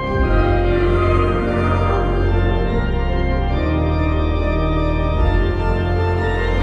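Background music: sustained organ-like chords over a steady low bass drone.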